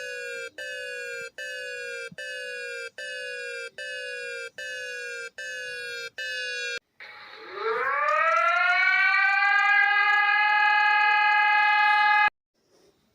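Alarm tone sounding in about eight short blasts, each a little under a second and falling slightly in pitch. After a brief break a civil defense siren winds up from low to a steady wail, holds it, and cuts off suddenly near the end.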